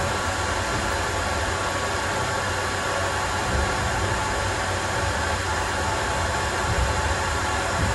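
A steady mechanical hum with a hiss over it, unchanging, as from a motor or fan running.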